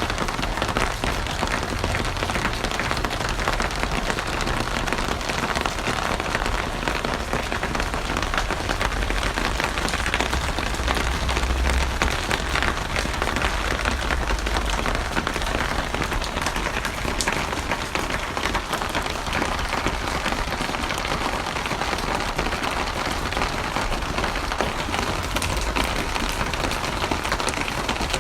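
Steady rain falling and pattering on a surface, a dense even hiss of many drops with a low rumble underneath.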